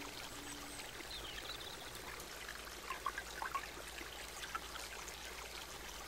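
Faint, steady rush of water flowing down a wide cascade of stepped rock ledges, with a few brief faint high chirps around the middle.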